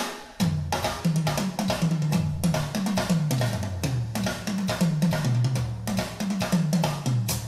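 Drum-kit groove with kick, snare and cymbals over a repeating bass line that steps down in pitch, played back through OceanWay Audio Eureka stereo speakers. The music dips briefly at the start, and the bass enters under half a second in.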